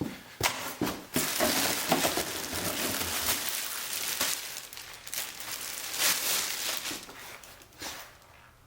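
Packaging crinkling and rustling as full-body mallard decoys are pulled out of their box, with a few sharp clicks and knocks; it dies down near the end.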